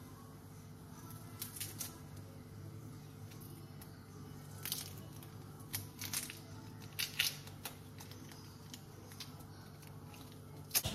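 Knife and fingers peeling the dry, papery skin off a red onion: a few scattered soft crackles and crinkles, several seconds apart, over a faint steady hum.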